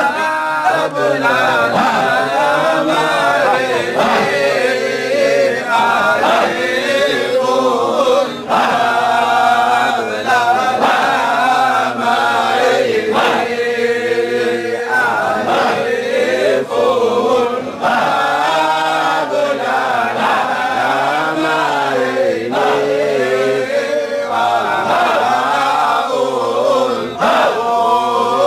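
A group of men chanting Shadhili Sufi dhikr together, a continuous melodic chant with many voices whose pitch rises and falls.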